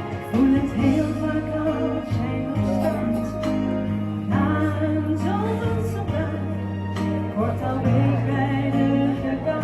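A song: a singing voice with instrumental accompaniment.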